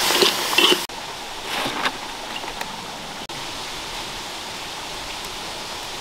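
Food sizzling loudly in a hot wok over a wood fire, with a few sharp scrapes and taps of stirring. Under a second in it cuts off to a steady, quieter rushing of flowing water.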